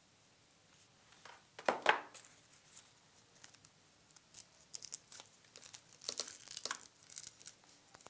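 Hands working the faux fur and its Velcro over the animatronic songbird's head: short crackly ripping and rustling strokes, thickest in the second half. About two seconds in, two sharp knocks as the hot glue gun is set down on the table.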